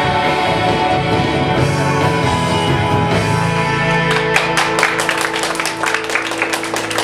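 Music with sustained chords; about four seconds in, a quick run of sharp claps joins it.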